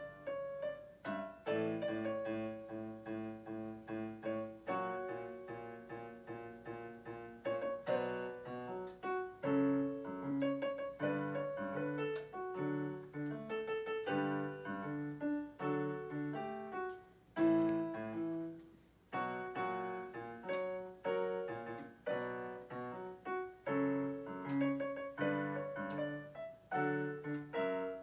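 Solo piano playing a song arrangement: a melody over repeated low chords.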